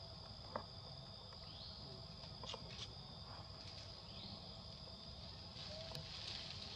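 Faint, steady high-pitched drone of insects in the forest, with two short rising sweeps and a few soft clicks.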